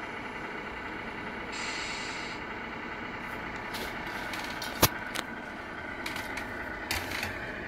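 Steady truck-engine idle sound, as an RC truck's engine sound unit plays it, with a sharp click about five seconds in and a few lighter clicks near the end.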